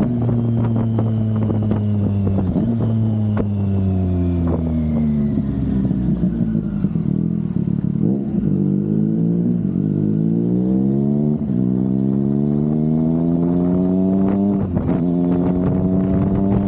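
Triumph Daytona 660's three-cylinder engine on the road: the revs fall away steadily for about six seconds as the bike slows, then climb back up over the next six seconds as it accelerates, settling to a steady pitch near the end.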